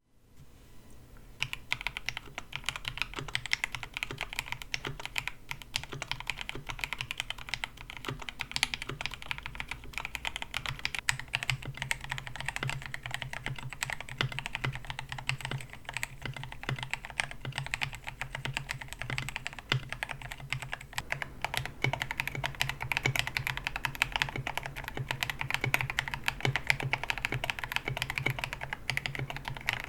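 Fast continuous typing on a KBD67 Lite mechanical keyboard with Gateron Yellow KS-9 Pro linear switches and a polycarbonate plate: a dense stream of key clacks starting about a second and a half in. A steady low hum sits underneath.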